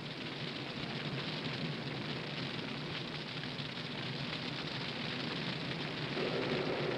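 Forest fire burning through pine timber: a steady rushing noise with fine crackling. A lower rumble grows louder about six seconds in.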